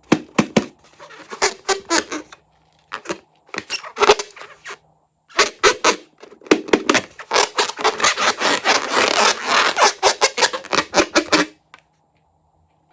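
Fluffy slime being squished and worked by hand, giving wet, sticky clicks and crackles. They come in three spells, the last and longest stopping about a second and a half before the end.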